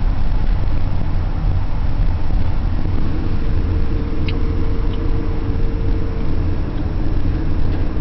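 Steady low rumble of a moving car, heard from inside the cabin: engine and tyre noise on the road, with a brief faint tick about four seconds in.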